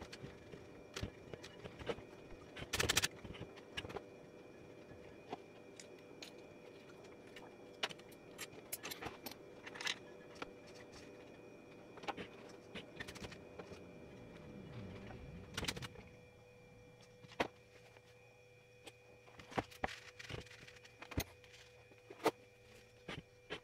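Scattered light clicks and small metallic rattles from hands handling the opened mechanism of a Singer Simple sewing machine, over a faint steady hum.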